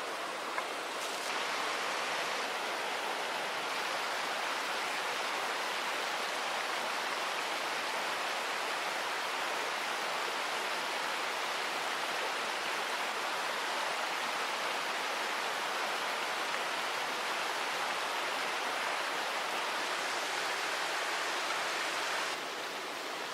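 Steady rushing of flowing river water, a little louder from about a second in until near the end.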